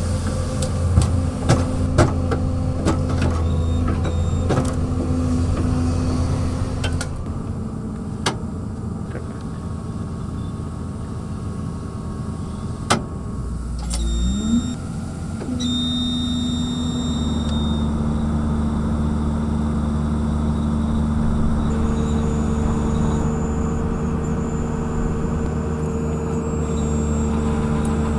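Excavator engine running steadily under the machine's working mechanism, with a run of sharp clicks and knocks in the first several seconds and a brief rising whine about halfway through.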